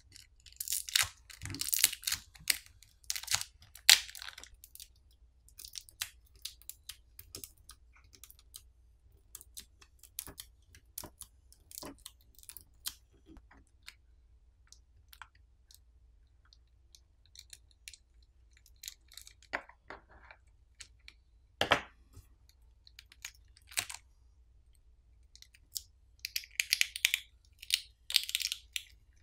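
A plastic pry tool levering under a smartphone battery, with the very strong battery adhesive crackling and tearing as it lets go. The sound comes in irregular crunchy bursts, heaviest at the start and near the end, with scattered clicks between them and one sharp knock about three-quarters of the way through.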